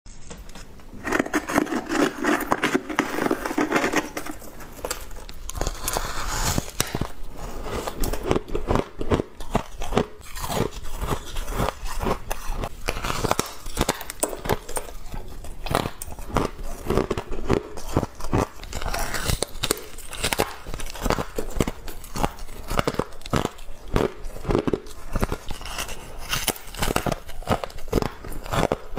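Someone biting into and crunching mouthfuls of humidifier frost, a rapid, continuous run of crisp crunches.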